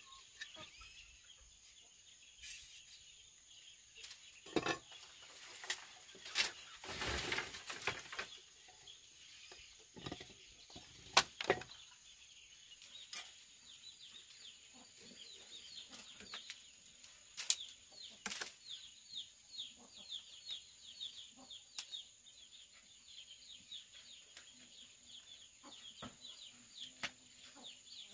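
Chickens clucking, with a short rustling flurry about seven seconds in and small birds chirping in quick runs later on, over a steady high-pitched hum.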